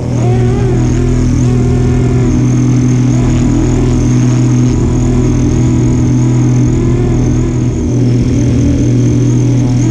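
FlyWing AS350 RC helicopter's electric motor and rotors running loud and steady in flight, with a high whine over the rotor hum and a pitch that wavers slightly up and down. It is heard close up from a camera strapped to the tail boom.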